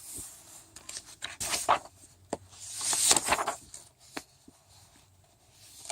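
Paper pages of a workbook rustling and being turned, with a few light taps of paper handling; the loudest swishes come about a second and a half and three seconds in.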